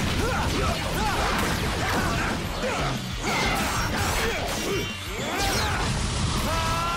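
Television action-fight sound effects: repeated sword clashes, hits and whooshes over a dramatic background music score.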